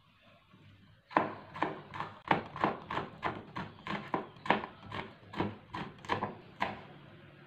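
Kitchen knife slicing bird's eye chilies on a plastic cutting board: a steady run of knocks, about three a second, starting about a second in and stopping near the end.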